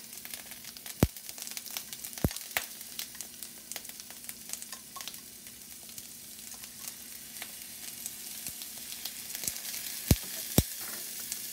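Asparagus and cherry tomatoes sizzling steadily in oil in a cast-iron skillet as they sauté. A few sharp clicks of a metal fork against the bowl and pan as minced garlic is added, the loudest two near the end.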